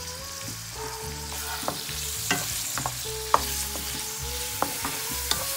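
Sliced onions and chopped tomato sizzling in hot oil as they are sautéed. A spatula scrapes and clicks against the pan several times while stirring.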